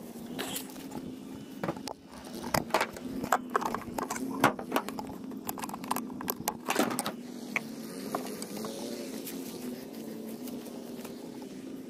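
Clicks, knocks and rustling of small objects being picked up and handled over dry straw, thickest in the middle few seconds, over a steady low hum.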